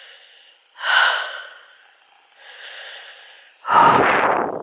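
A hiker's heavy breathing, out of breath on an uphill walk: a loud breath about a second in, a softer one, then the loudest breath near the end, close on the microphone.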